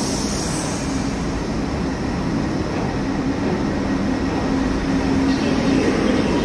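New York City Subway 42nd Street Shuttle train pulling into the station: a steady rumble of steel wheels on the rails with a faint hum, getting a little louder near the end.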